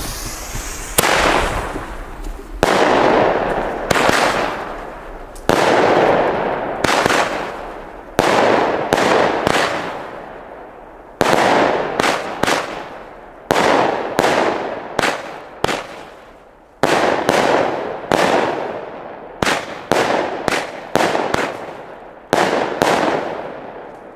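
Small consumer firework battery (cake) firing shot after shot, together with bird-scarer shells: more than twenty sharp reports, each trailing off, about one a second at first and then in a quicker, tighter sequence in the second half.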